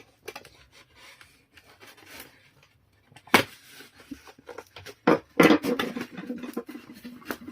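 Cardboard shipping box being cut open and handled: scraping and rubbing of cardboard with scattered clicks, a louder knock about three seconds in, and a busy run of knocks and rustles near the end.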